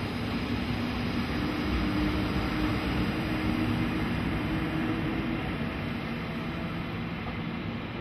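JR EF65 electric locomotive hauling the Oya 31 clearance-measuring car past at speed: a steady rumble and rush of wheels on rail with a faint low hum, swelling a little in the middle and easing off toward the end as the train moves away.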